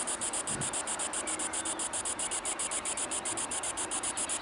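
Cricket chirping in a fast, even pulse, about six or seven high-pitched chirps a second.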